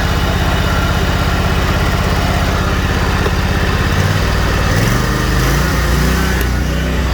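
Kawasaki FX 28 hp V-twin engine on a zero-turn commercial mower idling evenly, then revved up about four seconds in, its pitch climbing over a second or so and settling at a higher steady speed.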